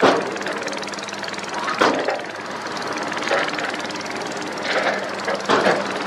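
Heavy diesel machinery (tipper trucks and a wheel loader) running steadily, broken several times by short crashes of rock clattering as a tipper truck dumps its load of broken stone.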